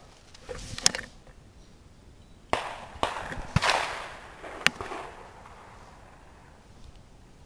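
Shotgun shots: a few sharp bangs from about two and a half to five seconds in, the louder ones trailing off in an echo. Light clicks and knocks come before them.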